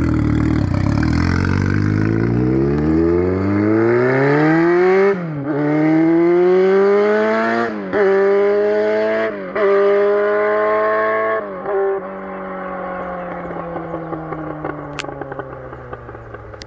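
Yamaha R1's inline-four engine, running with no exhaust, pulling away under acceleration: the engine note climbs and drops back four times as it shifts up through the gears. After the last shift it holds a slowly falling note that fades as the bike moves off.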